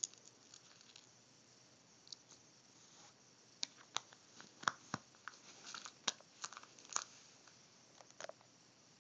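Light clicks and taps of a small plastic heart-shaped jewelry case being handled as its lid is fitted on and pressed shut, the clicks coming thickest in the middle.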